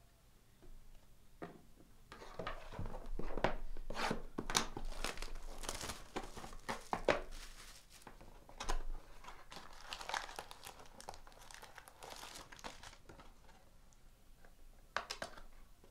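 A trading-card hobby box being torn open by hand: irregular tearing and crinkling of its wrapping and cardboard, loudest in the first half. Its wrapped packs are then pulled out and set on the table.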